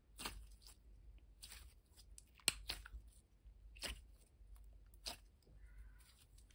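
Thick clear glitter slime squeezed and folded in the hands, giving off irregular crackles and trapped-air bubble pops, the sharpest about two and a half seconds in.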